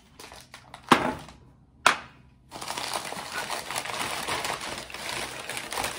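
Two sharp knocks about a second apart, then newspaper packing paper rustling and crinkling steadily as wrapped milk glass pieces are pulled out and unwrapped.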